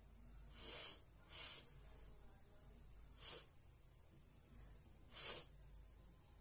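A woman sniffing sharply through her nose four times, short hissy sniffs a second or two apart, with red chilli powder in her nostrils that has not yet brought on a sneeze.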